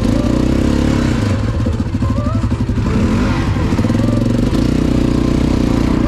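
ATV engine running under way, loud and continuous, with small rises and falls in engine speed.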